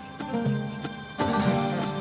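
Background music: a melody of held notes changing about every half second, with a louder phrase coming in a little past one second in.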